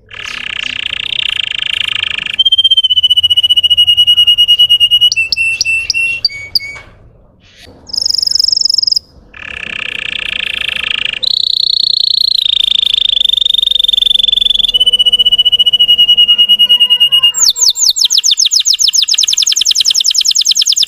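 Russian canary singing: long rolling trills held on a steady high pitch, broken by a short pause, then a fast sweeping trill near the end.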